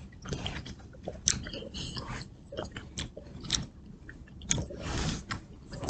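A person chewing and biting into fresh fruit from a fruit cup, with irregular short wet clicks and smacks close up.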